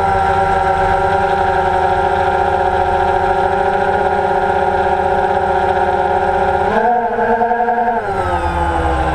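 Multirotor drone motors humming steadily. About seven seconds in, the pitch jumps up, and a second later it slides back down.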